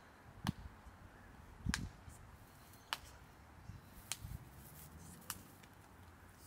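Five faint, sharp clicks at an even pace, about one every second and a bit, over a quiet outdoor background.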